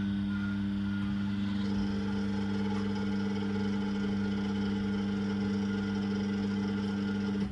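Electric hydraulic pump of a scissor lift running steadily as the lift raises a van, a constant hum that gains a higher note about two seconds in and cuts off suddenly at the end.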